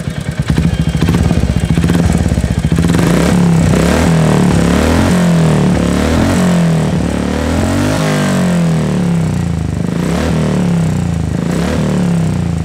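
Royal Enfield Hunter 350's single-cylinder engine running through an aftermarket Akrapovič-style hexagonal ('six-cut') slip-on silencer with a dB killer fitted, revved up and down over and over, the exhaust note rising and falling with each blip of the throttle.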